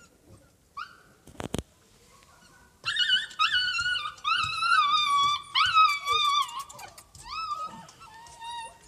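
Siberian husky puppies whining and whimpering, high-pitched wavering cries from several pups that overlap, starting about three seconds in and fading near the end. A single sharp knock comes before them, at about a second and a half.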